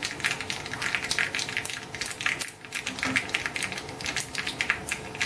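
Tempering crackling in a small pan: mustard seeds, curry leaves and dried red chillies frying in hot coconut oil over a gas flame, with dense, irregular pops and spits.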